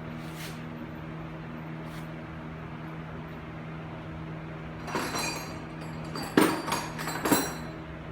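Steady hum of an electric fan, with a few sharp metallic clanks and clinks of tools or parts being handled, about five to seven and a half seconds in.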